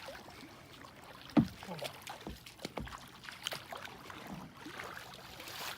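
Knocks and bumps against a kayak as people settle in and get ready to paddle, with one sharp thump about a second and a half in.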